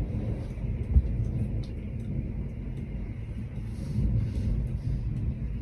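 Thunder rumbling low and continuously through a heavy rainstorm, swelling about four seconds in, with faint ticks of rain on the window glass.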